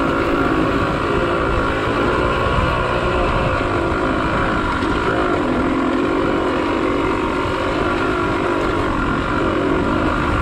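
Off-road motorcycle engine running steadily while riding a rough dirt trail, its pitch wavering a little with the throttle.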